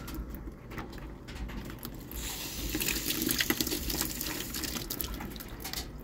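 Water from a garden hose spraying through a washing machine's water inlet screen and splashing into a bucket, rinsing out the dirt that clogged the screen and slowed the fill. The hiss of the spray grows louder about two seconds in and eases off near the end.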